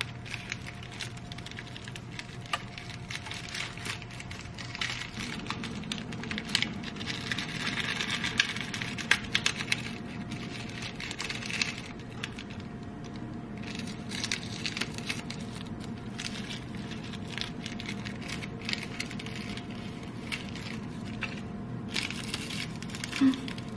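Thin plastic wrapping film crinkling and crackling in the hands as it is folded around and peeled from a nori-wrapped onigiri, with scattered small clicks that come thickest from about six to twelve seconds in. A faint steady hum runs underneath.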